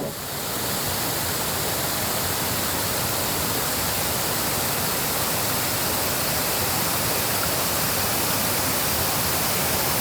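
Steady, even rushing noise of outdoor air or water, with no tone or rhythm, starting abruptly.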